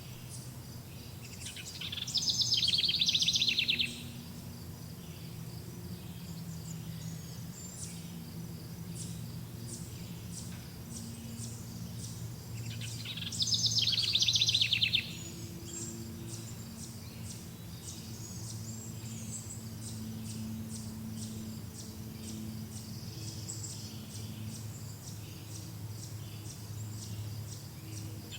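Summer forest birdsong. A loud, rapid trilled song of about two seconds comes twice, about eleven seconds apart, over many faint, high, scattered chirps and a low steady hum.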